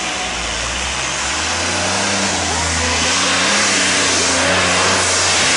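Modified pulling tractor's engines running hard under load during a pull run: a loud, steady engine drone that grows a little louder about two seconds in.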